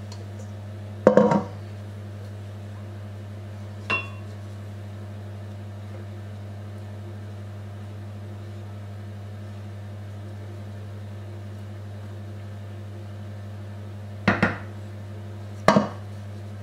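A stainless steel mixing bowl and a spatula knocking against a round metal cake pan as cake batter is scraped in: a few sharp clanks, the loudest about a second in, a small one at four seconds and two near the end, over a steady low hum.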